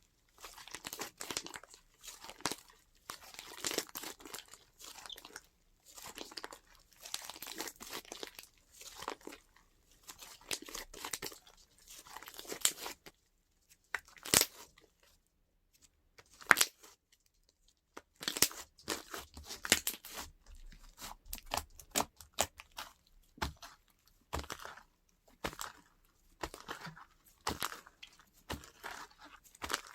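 Hands squishing, stretching and poking slime, giving irregular bursts of crackly, crunchy popping and sticky tearing, with a few sharper single snaps.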